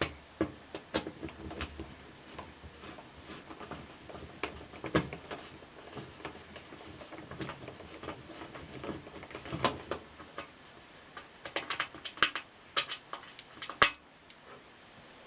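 Irregular small metallic clicks and clinks of a screwdriver and screws being worked out of a front-load washing machine's sheet-metal front, with a quicker run of clicks near the end.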